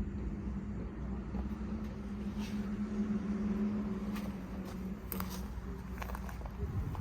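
Cat 424 backhoe loader's diesel engine running at a steady speed, with a few short knocks or clanks in the second half.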